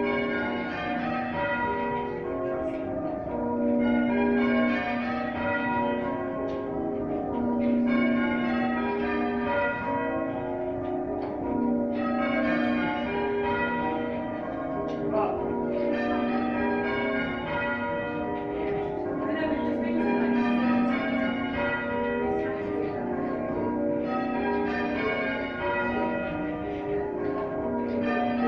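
Church bells rung in changes by a team of bell ringers: a continuous run of overlapping bell strikes, with the deepest bell coming round about every four seconds.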